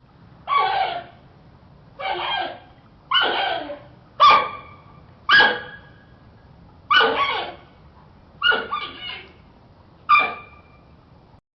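Panda calling: eight short yelping calls spaced one to two seconds apart, each falling in pitch, over a faint low hum.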